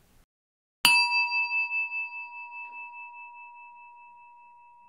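A meditation bell struck once about a second in, ringing with a clear high tone that wavers as it slowly fades.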